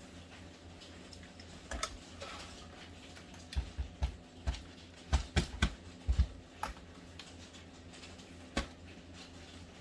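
Scattered light clicks and knocks of a screwdriver and hands working on an HP Pavilion 15 laptop's plastic casing while its screws are taken out, most of them bunched in the middle.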